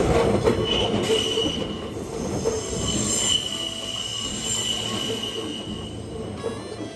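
Kintetsu electric train's wheels squealing as it rounds a sharp curve: a steady high-pitched flange squeal over the rumble of the train, slowly fading toward the end.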